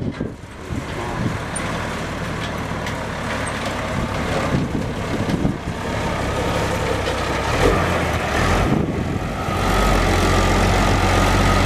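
Loaded log truck's diesel engine running as the truck drives up a dirt lane and pulls in close, getting louder about ten seconds in as it comes alongside.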